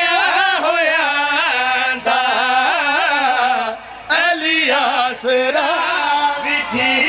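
Male voices singing a drawn-out, ornamented melody into microphones, the sung refrain of a verse of majlis poetry, with a short break about four seconds in.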